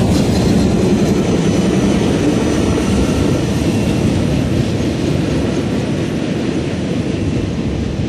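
Double-stack container freight train passing, with its trailing pair of diesel locomotives going by and moving away. It makes a steady low rumble of wheels and engines that slowly fades near the end.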